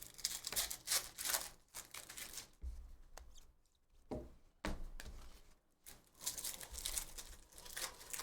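Packs of 2023 Topps Chrome F1 trading cards being torn open and the cards handled and slid by hand: a run of short rustling and tearing strokes.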